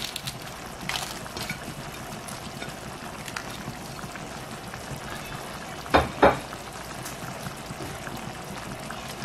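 Tomato, garlic and broth simmering under a pile of dried chiles in a stainless steel pan, a steady bubbling and sizzling. Two sharp knocks come close together about six seconds in.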